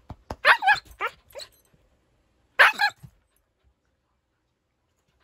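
Husky puppy giving short, high-pitched yips and whines: a quick run of several calls from about half a second in, then one more near three seconds in.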